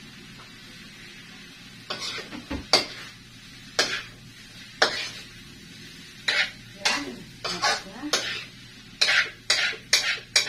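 A metal ladle stirs and scrapes in a wok of frying bitter melon, egg and tuna over a low, steady sizzle. The sharp clanks of the ladle against the pan start about two seconds in and come quicker near the end.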